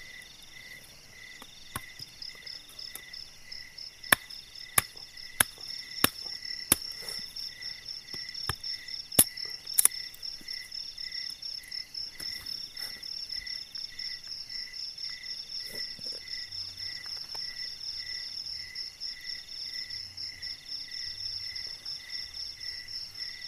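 Night insect chorus in the forest, crickets and other insects: a steady high trill over a slower, regularly pulsing chirp. Between about four and ten seconds in, a string of about eight sharp snaps stands out as the loudest sound.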